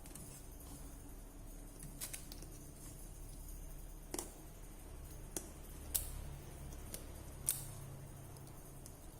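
A handful of sharp, scattered clicks and snips from small hand tools working on a phone, over a low steady hum.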